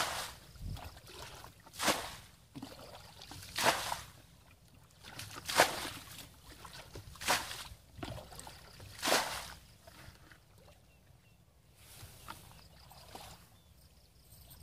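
Water being bailed out of a shallow muddy ditch with a plastic bucket: a splash about every two seconds as each bucketful is scooped and thrown out, six times, stopping about nine seconds in.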